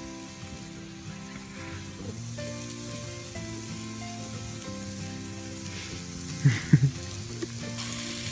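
Burger patties and mushrooms sizzling in a frying pan on a portable propane camp stove, with background music of held notes over it. A few short louder sounds come close together about six and a half seconds in.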